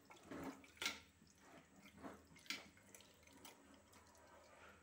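Spatula stirring yogurt-marinated duck meat in a metal cooking pot: a handful of faint, short wet squelches and scrapes spread over a few seconds.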